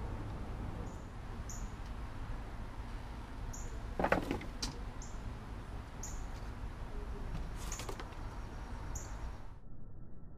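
Short high chirp calls repeating roughly once a second over a steady low rumble, with a brief knock or rustle about four seconds in and a fainter one near eight seconds.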